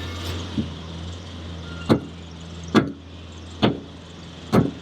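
A run of sharp thumps, evenly spaced a little under a second apart, over a steady low hum.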